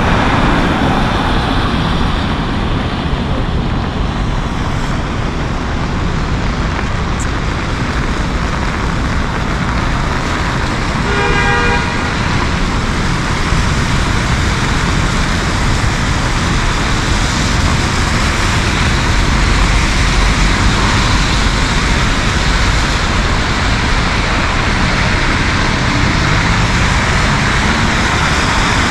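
Heavy rain and city traffic on wet streets: a steady hiss with the rumble of vehicles going by. About a third of the way through comes one short car horn toot.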